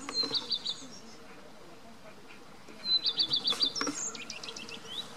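A songbird singing outdoors. A short burst of quick repeated high notes comes at the start, then a longer phrase about three seconds in that runs on into a string of short rising notes.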